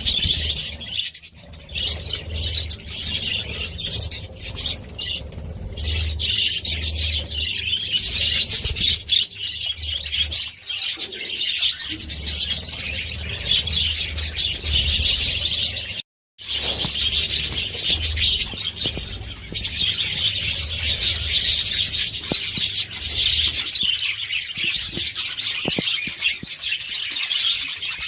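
Budgerigars chattering, chirping and warbling continuously as a flock. The sound cuts out completely for a moment about sixteen seconds in.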